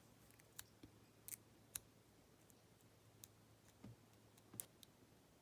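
About half a dozen faint, sharp metallic clicks at uneven intervals: a pick and shim working the pins of a Lockwood 570 oval pin-tumbler cylinder while it is core shimmed.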